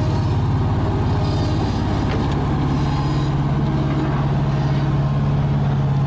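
Old Bobcat skid steer's gasoline engine running steadily, loud and close. It is running on three cylinders, which the mechanics put down to a bad distributor reluctor.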